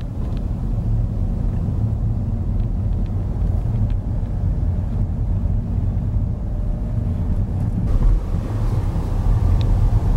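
Car driving, heard from inside the cabin: a steady low rumble of engine and tyres on the road, growing a little louder near the end.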